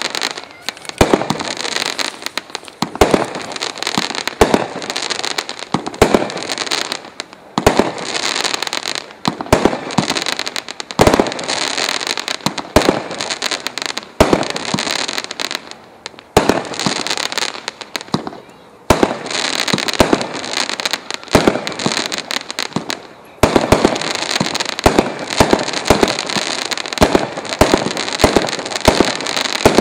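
Multishot fireworks cake firing shot after shot: sharp launch and burst reports, each followed by dense crackling from the bouquet effects. The shots come faster and run together in the last few seconds.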